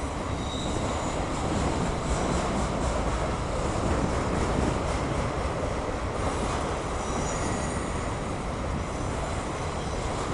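Autorack freight cars rolling past, a steady rumble of steel wheels on rail, with brief faint high-pitched wheel squeals shortly after the start and again about six to seven seconds in.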